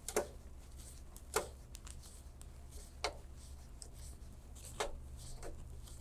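Screwdriver tightening the screws of a CPU heatsink, giving small metallic clicks and ticks, with a few sharper clicks about every second and a half. A steady low hum sits underneath.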